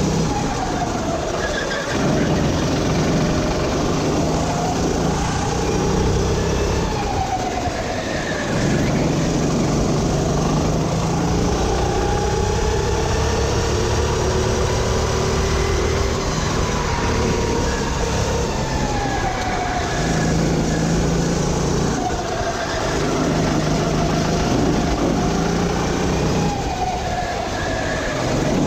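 Sodi RT8 rental go-kart engine at racing speed, heard from the kart itself. Its pitch climbs on the straights and falls back each time the driver lifts for a corner, several times over.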